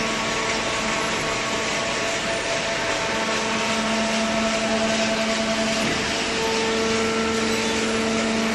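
Hydraulic cardboard baler running: a steady machine hum and whine over a loud hiss, swelling slightly a few seconds in.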